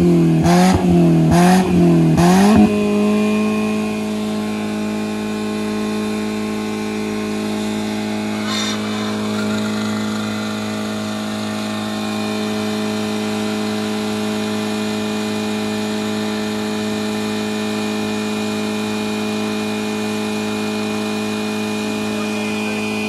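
Nissan Versa's four-cylinder engine running at high revs, its pitch swinging up and down about once a second for the first two and a half seconds, then held at one steady high pitch near redline. The engine's oil has been drained and it is being run flat out until it seizes.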